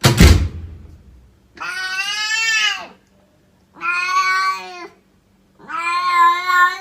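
A loud thump at the very start, then a cat giving three long, drawn-out meows, the last one the longest.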